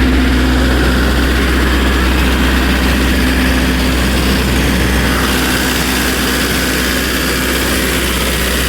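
MEP-803A 10 kW diesel generator set running steadily with a loud, even engine hum; the sound shifts slightly about five seconds in.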